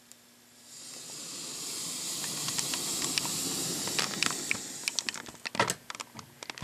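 A small pile of extruded smokeless rifle powder, about 49.5 grains from a .30-06 cartridge, catches from a match about half a second in and flares up. It burns with a hiss that swells quickly and holds for about four seconds, with crackling pops through it, then dies away, leaving a few sharp clicks near the end.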